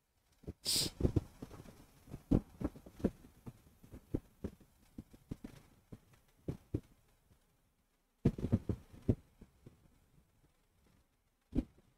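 Irregular soft low thumps and knocks, with a short hiss under a second in and a quick cluster of knocks around eight to nine seconds in.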